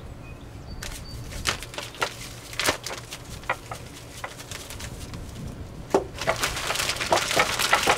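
Scattered light clicks and rattles from a spice shaker being shaken over an open plastic zip-top bag of raw meat and onion. About six seconds in, the plastic bag starts crinkling steadily as it is handled.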